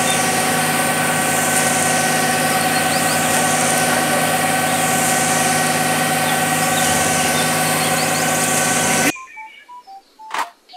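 Concrete mixer truck's diesel engine running steadily at a constant speed while the drum discharges concrete down the chute. It cuts off suddenly about nine seconds in, followed by faint handling noises and a single click.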